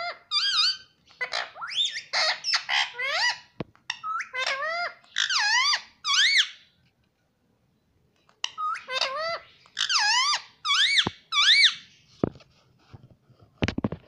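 Indian ringneck parakeet calling in quick bursts of rising and falling notes, facing its reflection in a small mirror. There is a break of about a second and a half around the middle, and a few sharp taps near the end.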